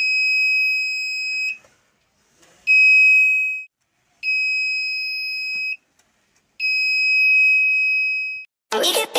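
Alarm buzzer of an IR-sensor and 555-timer security alarm circuit sounding one high steady tone in four separate beeps of uneven length, each one to two seconds long. Electronic dance music starts near the end.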